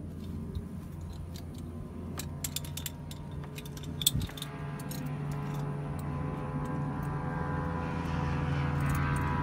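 Helicopter turbine engine starting, its whine rising and growing steadily louder through the second half over a low steady hum. Earlier there is a run of metallic clicks and jingling, sharpest about four seconds in, as the dog is strapped into the cabin.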